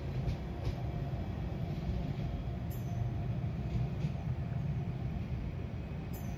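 Manchester Metrolink tram running: a steady low rumble.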